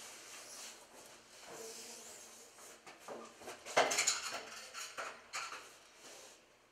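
Footsteps on a hallway floor and a door being handled, heard as scattered clicks and knocks. The loudest cluster of clicks comes about four seconds in, at the door.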